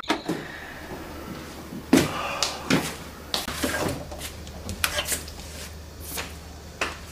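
A wooden interior door being handled: a run of irregular sharp knocks and latch clicks as it is tried and pulled open.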